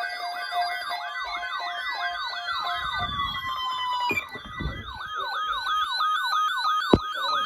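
Electronic siren sounding a fast yelp, its pitch sweeping up and down about three times a second, with a second tone sliding steadily down in pitch through the first half. A single sharp click near the end.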